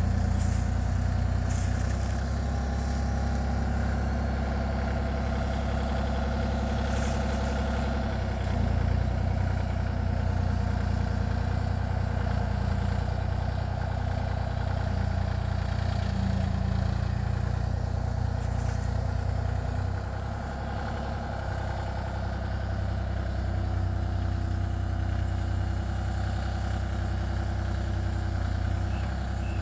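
Kubota KX033-4 compact excavator's diesel engine running steadily while the machine works, its note shifting slightly with load. A few short clanks come in the first several seconds and once more near the middle.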